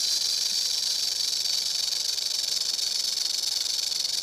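Timber rattlesnake rattling its tail: a steady, unbroken high-pitched buzz. It is the snake's warning, announcing its presence to avoid having to defend itself; it means someone is very close to the snake.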